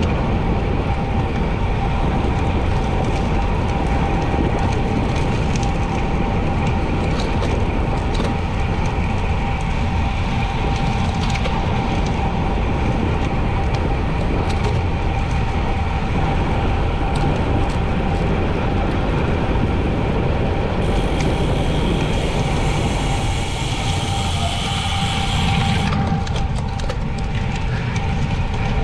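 Wind rush on the microphone and tyre noise from a bicycle ridden at speed, steady and unbroken, with a faint steady hum running through it. A brighter hiss joins for about five seconds past the middle.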